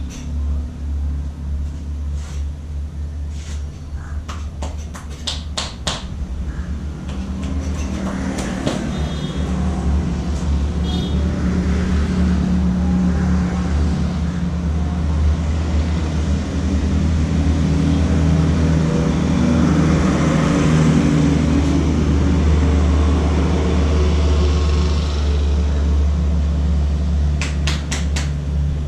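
Steady low engine rumble of road traffic that grows louder toward the middle. A quick run of sharp snaps or clicks comes about two to six seconds in, and a few more near the end.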